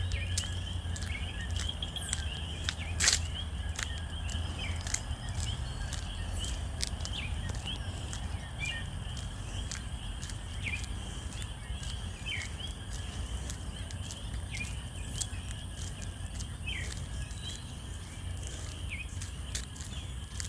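Outdoor natural ambience: a steady high insect drone with short falling chirps repeating every second or two, over a low rumble. Scattered clicks, with one sharp click about three seconds in.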